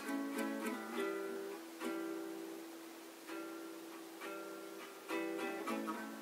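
Instrumental passage of a song: a plucked string instrument picking notes and chords, each struck sharply and left to ring out and fade.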